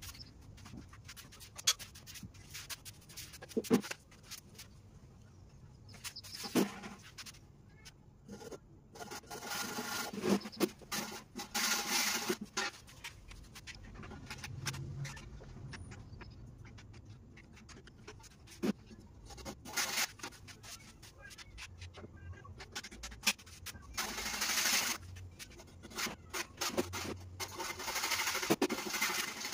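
Hand saw cutting a wooden board in runs of back-and-forth strokes, with scattered knocks and clatter of wood being handled between the runs.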